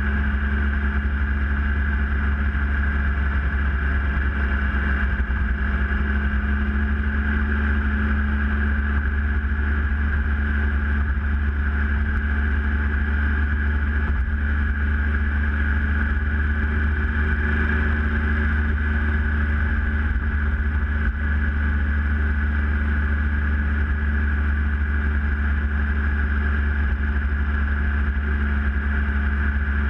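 Triumph Tiger Explorer 1200's three-cylinder engine running steadily at an even cruising speed, mixed with wind and road noise.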